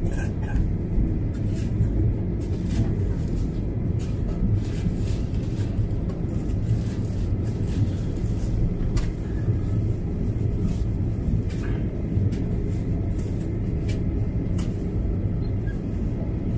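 Steady low cabin rumble of a Boeing 737-800 taxiing, its CFM56-7B engines at low taxi power, with scattered light clicks and rattles.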